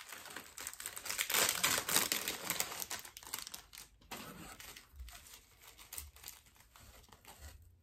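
Paper packaging crinkling and rustling as a parcel is unwrapped by hand. It is loudest and densest in the first few seconds, then thins to lighter, scattered rustling.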